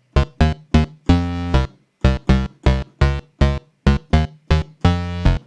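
Software synthesizer (u-he Tyrell N6) playing a house bass line: about a dozen short, punchy notes with instant attack and quick decay, a few held a little longer.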